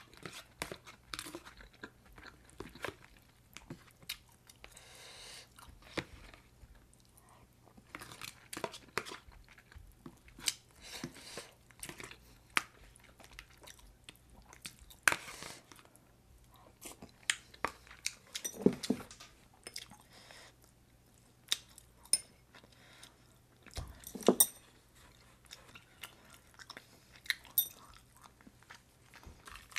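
Close-miked chewing and eating sounds of someone eating kimchi stew, with wet mouth noises and a few sharp clicks of utensils against the bowls.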